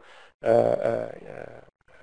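A man's voice making a drawn-out hesitation sound, an "uhh" without words, that fades over about a second.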